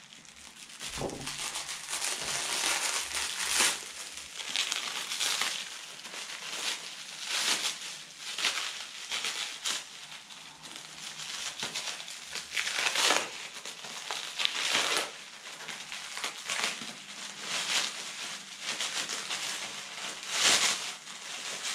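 Black plastic packaging crinkling and crackling as it is unwrapped and pulled apart by hand, in irregular crackles that come and go.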